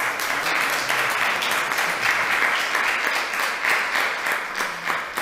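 Audience applauding, many hands clapping steadily, starting to die down near the end.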